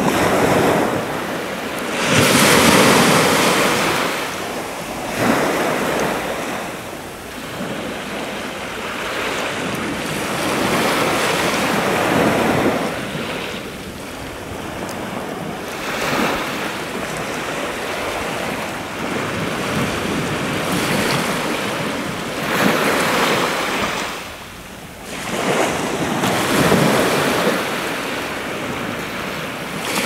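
Sea waves breaking and washing on the shore, the surf swelling and easing every few seconds, with wind buffeting the microphone.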